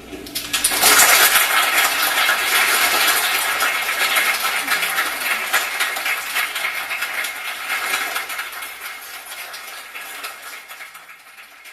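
Audience clapping, rising quickly about a second in and then slowly dying away.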